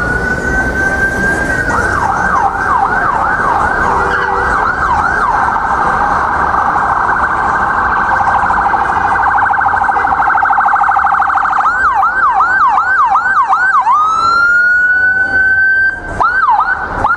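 Ambulance siren switching through its modes: a slow rising wail, then fast repeated yelp sweeps, then several seconds of very rapid warble. It goes back to yelp, rises in a second wail about fourteen seconds in, and ends on yelp again.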